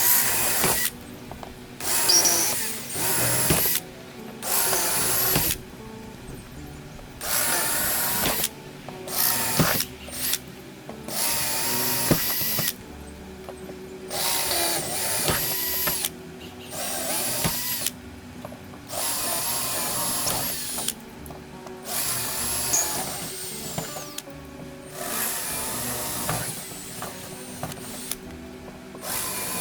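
Cordless drill drilling out the rivets along a fibreglass sailboat's deck-to-hull seam, in a long series of short bursts about a second long with brief pauses between them. Background music plays underneath.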